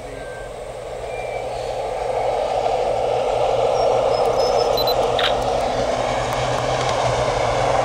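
CPH rail motor set approaching: a steady engine drone and running noise that grows steadily louder as the railmotors come nearer.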